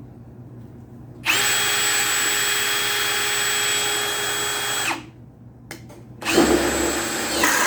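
Ryobi One+ HP brushless hammer drill driving a 1 1/8-inch spade bit on speed 2 from a 4 Ah battery. It runs twice with a steady high whine: the first run stops after about three and a half seconds, and in the second the pitch drops near the end as the drill bogs down under load. The 4 Ah battery can't drive this bit on speed 2.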